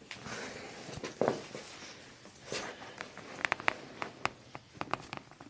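Quiet rustling of clothing and table cover from movement on a chiropractic treatment table, with a quick run of small sharp clicks in the second half.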